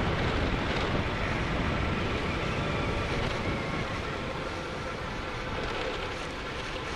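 Wind rushing over the microphone, with a motorcycle engine running steadily underneath while riding.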